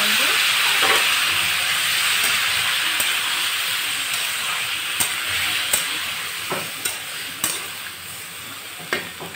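Freshly added chopped tomatoes sizzling in hot oil in an aluminium kadhai, the hiss slowly dying down as they cool the pan. In the second half a metal spatula stirs them, with a few sharp clicks against the pan.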